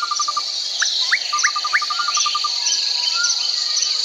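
A steady, high-pitched chorus of trilling insects with birds calling over it: two runs of rapid pulsed notes, about ten a second, and a few short upward-sweeping whistles.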